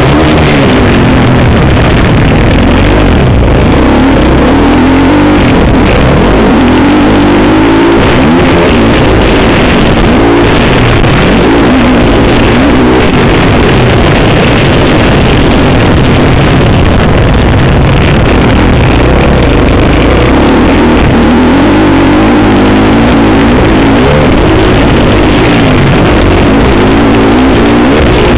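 Motocross bike's engine heard on board, revving up and down over and over as the rider works the throttle and gears around the track. It is loud, pinned at the recording's limit throughout.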